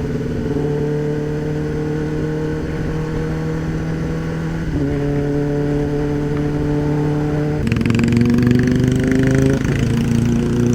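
Kawasaki ZX-10R's inline-four engine running on the move, its pitch slowly falling as the bike slows. The pitch steps up sharply about five seconds in and again near eight seconds, as the bike is shifted down.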